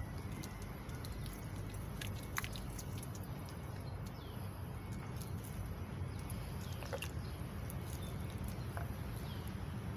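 Wind rumbling on the microphone, with a few short high chirps and faint light clicks scattered through it.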